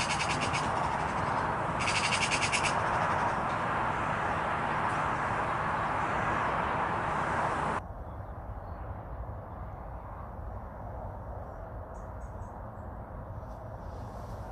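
Eurasian magpie's rapid chattering rattle, given twice in bursts of about a second, over a steady rushing noise. The rushing noise cuts off sharply about eight seconds in, leaving a quieter background with a few faint high chirps.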